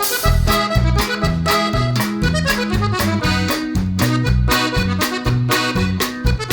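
Upbeat outro music led by an accordion-like melody over bass notes and a steady beat, starting abruptly after a brief silence.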